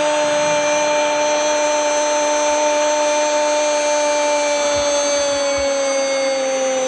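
A Portuguese-language TV football commentator's long held goal cry, "gooool", one sustained shouted note slowly sinking in pitch, over a cheering stadium crowd.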